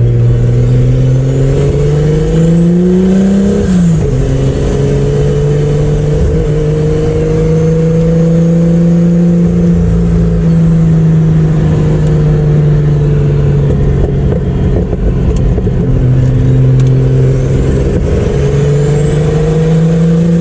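Chevrolet Opala's turbocharged inline-six running on the road: it pulls up through the revs, drops back at a shift about three and a half seconds in, then holds a steady, slowly climbing note, pulling up again near the end before another drop. A faint high whistle rises with each pull.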